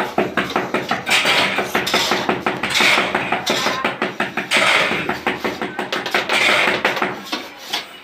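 Metal hoe blade scraping and chopping through a pile of sand and cement mix on a concrete floor, as the mix is turned for tile-bedding mortar. A gritty rasping scrape with each of the repeated strokes, coming every second or two.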